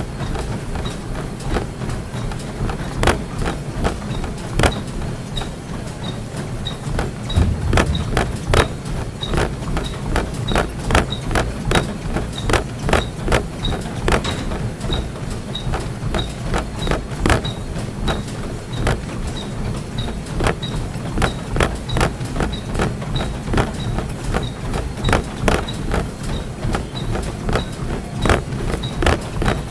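Treadmill in use: regular footfalls on the moving belt about twice a second over a steady low motor hum, with a faint high tick repeating at about the same pace.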